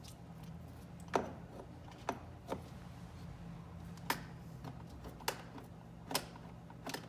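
Windshield glass being cleaned of old adhesive-tape residue: about seven short, sharp strokes at irregular intervals, over a steady low hum.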